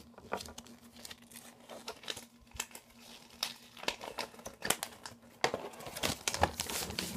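Folded paper flyer being unfolded and handled, crinkling and rustling in irregular bursts that get louder and busier in the last couple of seconds.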